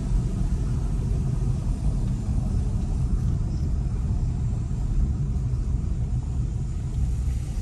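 Steady low rumble of a car driving slowly, heard from inside the cabin.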